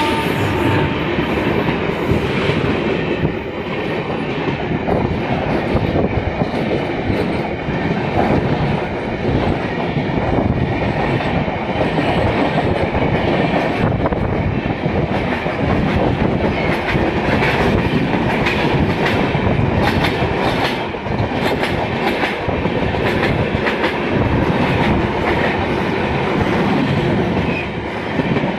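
Express train coaches rushing past close alongside a train window, with loud steady rushing and a rapid clatter of wheels over rail joints. A train horn fades out about a second in.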